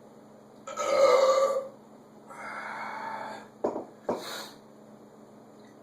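A man's loud burp about a second in, followed by a softer breathy sound and two short clicks.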